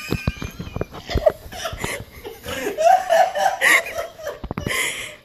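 Human laughter, with several quick knocks in roughly the first second and a half.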